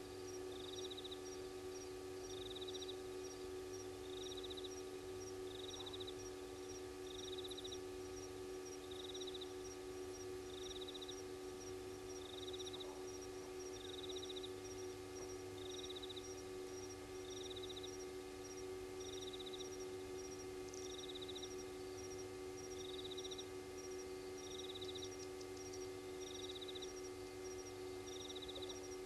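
Night chorus: a short trilled chirp repeating steadily about once a second, with a fainter, faster ticking call above it, over a steady electrical hum.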